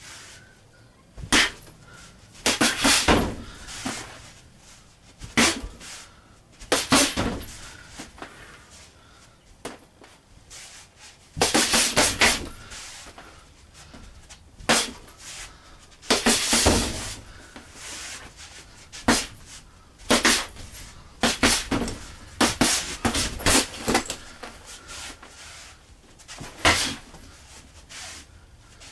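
Punches landing on a hanging heavy punching bag, thrown in quick combinations of one to four sharp strikes with short pauses between, the busiest flurries about 3, 12 and 17 seconds in.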